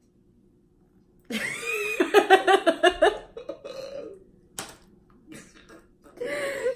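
A man gagging and retching on a foul-flavoured Bean Boozled jelly bean, with rapid pulsing laughter, starting about a second in and dying down after a couple of seconds; a shorter burst returns near the end.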